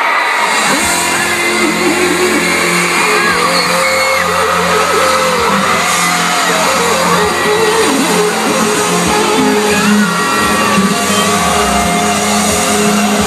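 Concert sound system starting the show's intro music about a second in, with sustained low synth notes, while the crowd screams and cheers over it.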